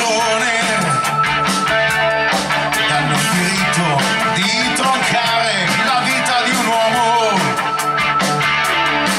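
Live rock band playing an instrumental passage: electric guitar, bass guitar and drum kit, with a wavering lead melody on top.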